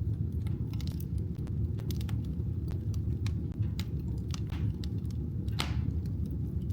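Wood fire burning in a fireplace, crackling with frequent sharp pops over a steady low rumble; one louder snap comes about five and a half seconds in.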